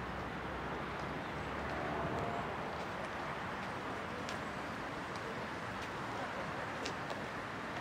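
Steady outdoor background noise: a distant traffic hum, with a few faint, scattered clicks.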